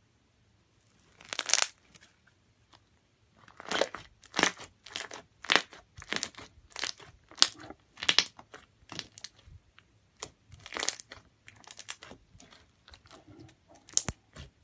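Thick slime being squashed and pulled by hand, giving short sticky crackles and squelches. One comes about a second and a half in, then a steady run of them, one or two a second, until near the end.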